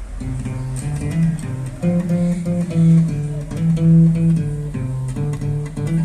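Music played through a W-King D9 Bluetooth speaker at half volume: a guitar picking out a melody of separate notes over a bass line, starting suddenly.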